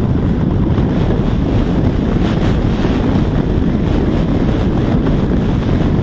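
Wind rushing over the microphone of a camera riding on a Parrot Disco fixed-wing drone in flight, a loud, steady low rumble.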